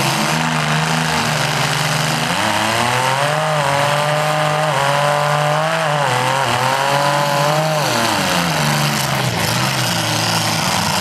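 Several compact demolition-derby cars' engines running at once. One engine revs up about two seconds in, holds high with a wavering pitch, and drops back near eight seconds, then climbs again near the end.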